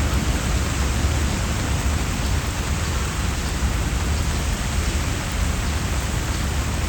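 Steady summer rain falling on tree leaves and stone paths, an even hiss with no separate drops standing out, over a constant low rumble.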